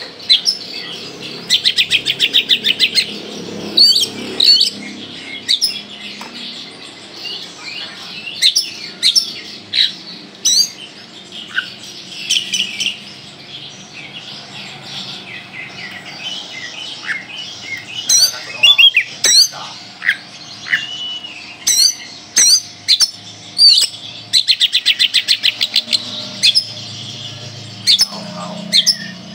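Kalimantan oriental magpie-robin in full song: a varied run of loud, sharp whistled notes broken by several fast rattling trills of repeated notes, near the start, in the middle and over the last few seconds.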